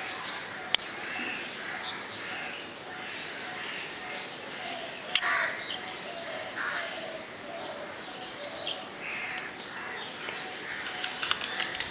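Many birds calling and chirping in the morning, short overlapping calls over a steady background hiss. Two sharp clicking notes stand out, about a second in and again about five seconds in.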